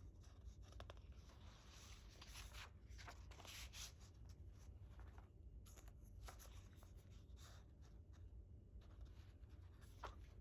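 Faint rustling and sliding of paper and card: album inserts being unfolded and handled, with scattered light taps.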